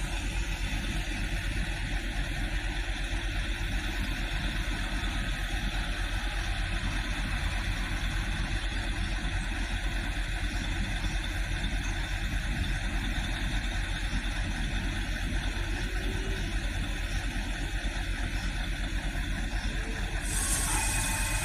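3100 class diesel railcar idling while standing, a steady low engine rumble. Near the end a brighter hiss and a few steady higher tones come in.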